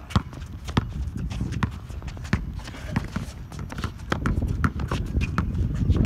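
A basketball bouncing on an outdoor hard court, irregular thuds about one to two a second, mixed with players' footsteps. A low rumbling noise grows louder about four seconds in.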